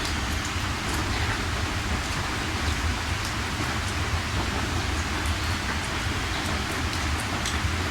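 Steady heavy rain falling, with scattered sharp drop ticks over an even hiss and a deep low rumble underneath.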